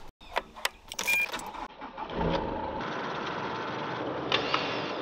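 Ultra Winch PDX MK4 electric winch motor running steadily on a test spin from its wired remote, after a few sharp handling clicks in the first two seconds.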